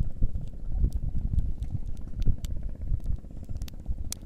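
Wind buffeting the microphone, with a few sharp clicks, the loudest near the end, as pliers work a hook out of a grouper's mouth.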